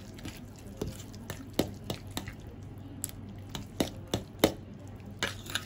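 A fork stirring wet shredded beef and egg in a glass baking dish, knocking and clinking against the glass in irregular taps.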